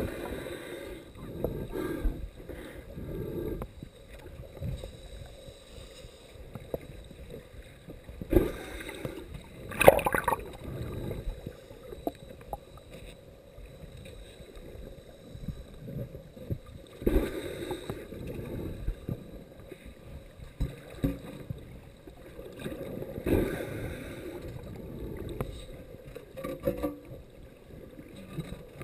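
Muffled water sloshing and churning heard through a submerged camera, with several louder surges and swishes as the detector is swept through the shallows.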